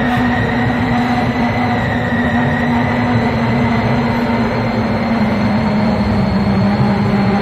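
A loud, steady, eerie drone: a dense rumble with several unchanging held tones over it, with no breaks.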